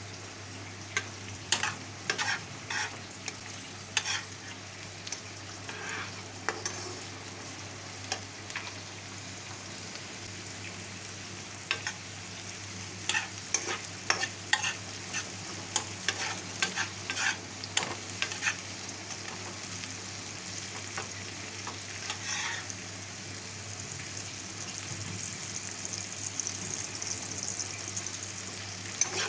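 Onions frying in a pan with a steady sizzle, stirred with a spatula that scrapes and taps against the pan at irregular moments. The sizzle grows a little stronger near the end.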